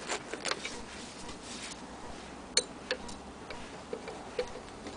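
Hand-cranked Singer 15K80 sewing machine stitching denim: irregular clicks and ticks from the mechanism, the sharpest about halfway through.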